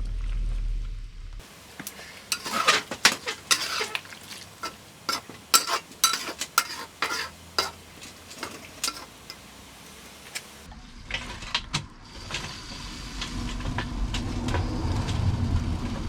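A metal utensil stirring and scraping in a pan of frying chicken wings, a dense run of clicks and scrapes for several seconds. After that a steady sizzle with a low rumble under it builds towards the end.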